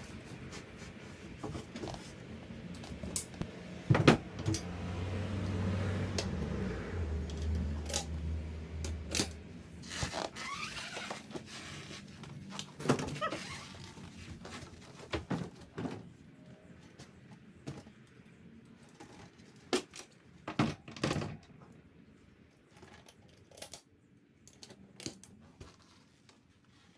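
Scattered knocks and clunks of handling, the loudest about four seconds in, with a low hum for a few seconds after it and fewer, fainter knocks toward the end.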